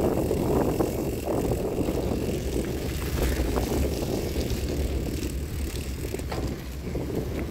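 Bicycle riding over grass and a rough dirt track: a steady tyre rumble with scattered small rattles and clicks from the bike jolting over bumps.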